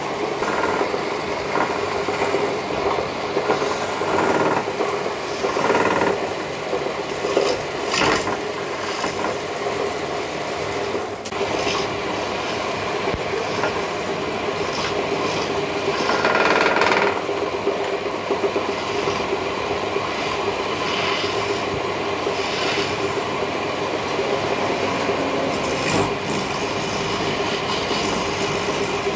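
Wood lathe running with a steady hum while a hand chisel scrapes and cuts a spinning wooden spindle, with a few louder cutting passes.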